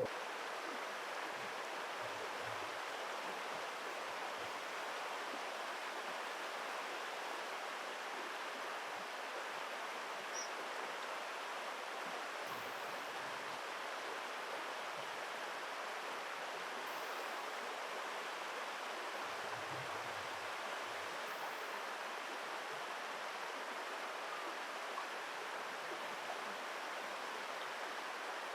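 Steady rush of flowing river water, an even hiss with no change.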